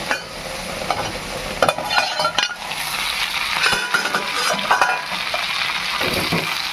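Curry frying and sizzling in a pan while it is stirred, a utensil scraping and clinking against the pan in short clusters about two seconds in and again around four seconds in.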